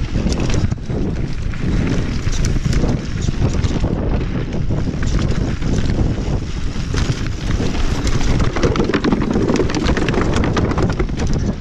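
Wind rushing over the camera microphone of a mountain bike descending a rocky dirt trail, with steady rattling and clacking as the bike rides over stones and bumps.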